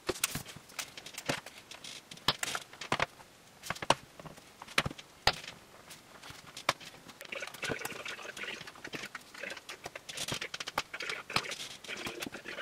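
Scattered sharp clicks and taps of fingers and fingernails working at the edge of a MacBook Pro's aluminium bottom case to pry it off, with rustling handling noise in the second half.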